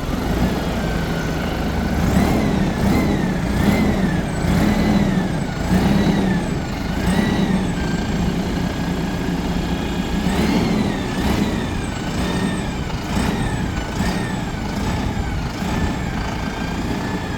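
Tractor diesel engine revved in repeated blips, its turbocharger whine rising and falling with each blip roughly once a second. It comes in two runs, separated by a short steadier stretch around the middle.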